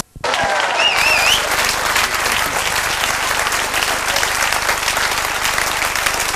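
Studio audience applauding, with steady dense clapping that starts right after a brief dropout. A short wavering whistle rises through it about a second in.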